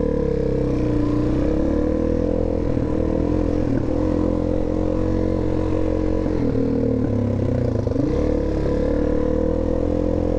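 Suzuki DR-Z400S single-cylinder four-stroke engine running at low road speed, heard from the rider's seat. Its pitch dips and rises again a couple of times about two-thirds of the way through as the throttle is eased off and opened.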